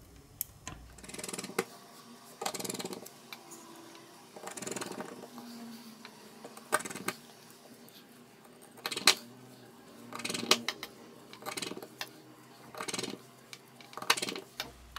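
Small metal clicks and short scrapes of a precision screwdriver working the tiny screws on the metal shield plate of an opened BQ Aquaris X Pro smartphone, a run of them every second or two.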